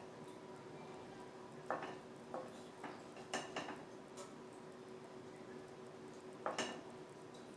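A metal spoon clinking and scraping against a pan and plate as food is served, in a string of scattered knocks with the loudest pair near the end, over a faint steady hum.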